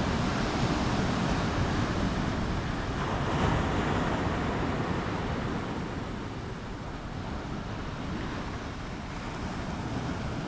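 Surf washing onto a sandy beach, with wind on the microphone; a wave swells louder about three to four seconds in.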